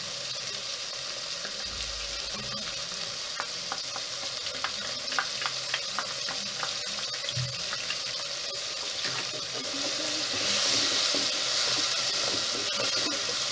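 Chopped vegetables sizzling in hot oil in an aluminium pot, with a run of light clicks in the middle as tomato paste is scraped out of a small metal bowl with a wooden spoon. Near the end the sizzling grows louder as the pot is stirred with the wooden spoon.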